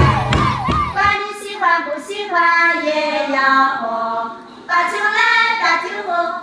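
About a second of shouting and thumping, then several women singing a high-pitched folk toasting song together in long, held phrases.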